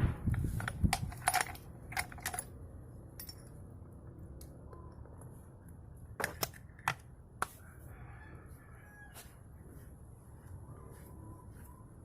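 Sharp metal clicks and clinks of hand tools on a Yamaha Vega ZR motorcycle's clutch cover as it is taken off, several in the first two seconds and a few more about six to seven seconds in. A rooster crows faintly twice, near the middle and near the end.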